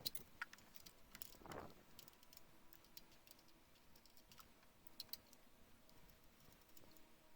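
Faint, scattered light clicks and taps of hand tools and small parts being handled, with a brief rustle about a second and a half in.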